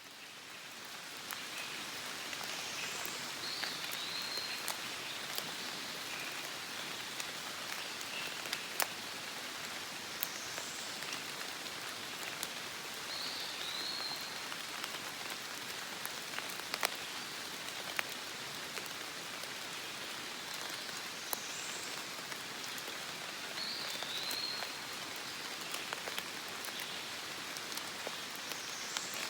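Steady rain falling on forest foliage: an even hiss with scattered sharp drip taps, fading in over the first second or so. A faint high chirp recurs every ten seconds or so.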